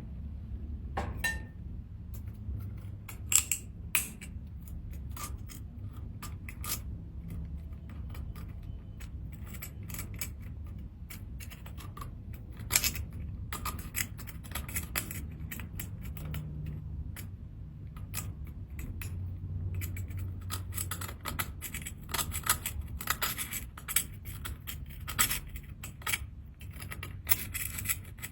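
Seashells being handled and cleaned, with irregular sharp clicks and scrapes of hard shell against shell or tool, over a low steady hum.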